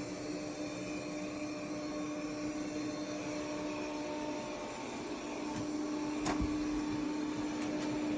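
Yeedi M12 PRO+ robot vacuum running with a steady motor hum, a short knock about six seconds in.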